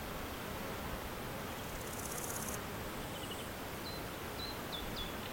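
Reed-bed ambience: a steady rustling hiss, with a short, very high insect buzz about two seconds in. A few brief, faint high bird chirps follow in the second half.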